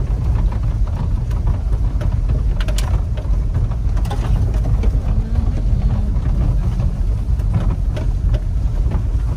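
Daihatsu Hijet 4WD kei truck driving over a rough dirt track, heard from inside the cab: a steady low rumble of engine and tyres, with scattered knocks and rattles as it goes over bumps.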